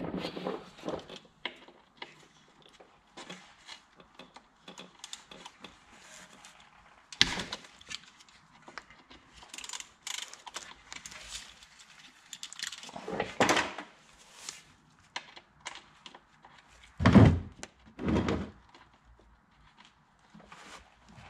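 Hex 8 tool working the oil drain plug on a Porsche 986 Boxster's sump: scattered clicks and metal knocks, a sharp knock about seven seconds in, and two heavier thunks a second apart near the end.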